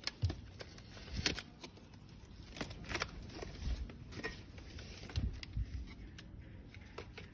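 Scattered light clicks and taps at irregular intervals as a product's packaging is handled.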